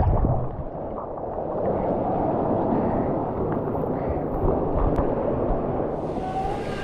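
Steady, muffled rush of water with a faint gurgle, most of its sound low and dull.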